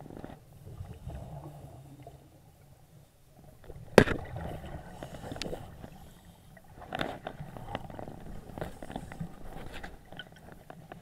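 Muffled underwater noise of scuba divers' exhaled bubbles and regulator breathing, heard through a camera's waterproof housing, with one sharp knock about four seconds in.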